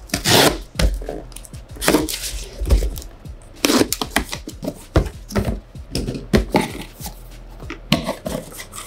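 Pen-style box cutter slitting the packing tape on a cardboard shipping box, in a series of irregular scraping strokes, then the cardboard flaps being pulled open near the end.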